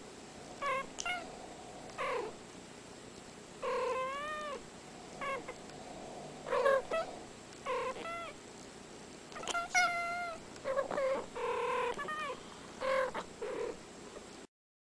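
Two domestic cats trading short meow-like calls back and forth, each call bending up and down in pitch. The sound cuts off suddenly near the end.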